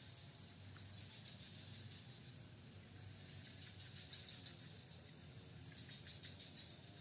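Steady, high-pitched drone of an insect chorus, with faint scattered ticks and a low background rumble.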